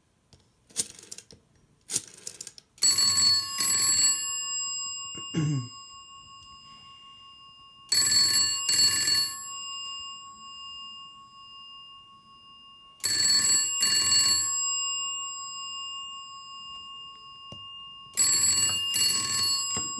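GPO 322 telephone's bells ringing in the UK double-ring cadence set on the PBX: four ring-ring pairs about five seconds apart, with the bell gongs humming on between them. A few clicks of a rotary dial come just before the first ring.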